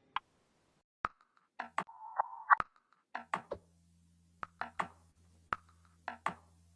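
Sparse electronic percussion one-shots, irregular short clicks and knocks, some carrying a brief midrange tone. About three seconds in, a held low bass note starts underneath them.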